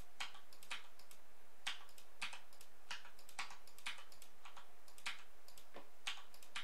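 Faint clicks of a computer keyboard and mouse, about a dozen at irregular intervals: shortcut keys pressed and mouse buttons clicked while editing a 3D model.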